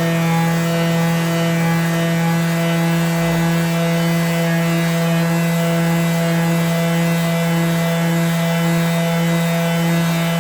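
Electric sander running steadily on the wood of a chest of drawers, a constant motor hum with a rasping edge.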